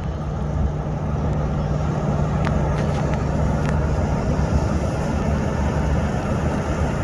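Ski boat's motor running steadily at speed while towing a water skier, a continuous low engine hum.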